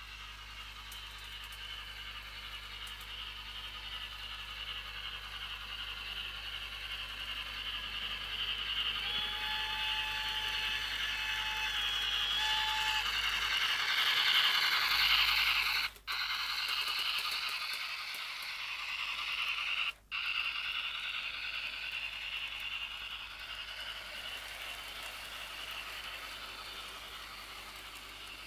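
H0 model trains rolling on Märklin track, a steady rattle of wheels on rails that grows louder as a train passes close to the microphone about halfway through. A held whistle-like tone sounds for a few seconds before that, and the sound cuts out briefly twice.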